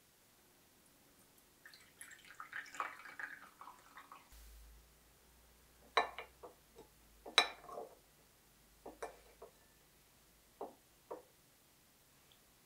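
Coffee poured from a glass server into a porcelain cup for a couple of seconds, then a metal fork clinking against a porcelain plate as it cuts into pound cake, the two loudest clinks near the middle followed by a few lighter ones.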